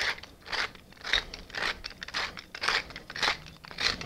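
Pepper mill being twisted, grinding black pepper in a steady run of short grinding bursts, about two a second.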